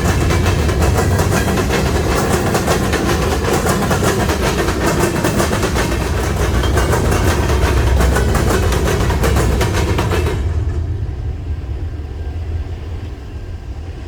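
A train rolling past close by: a steady low rumble with rapid clattering of wheels on the rails. The clatter drops away abruptly about ten seconds in, leaving a fading rumble.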